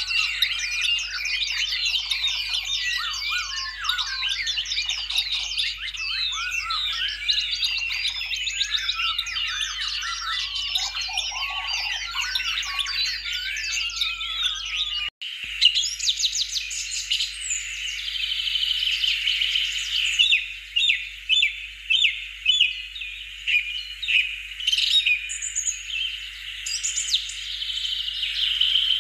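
Many small birds chirping and singing together in a dense chorus. About halfway through the sound breaks off for an instant, and the chirping goes on with runs of short, quickly repeated notes.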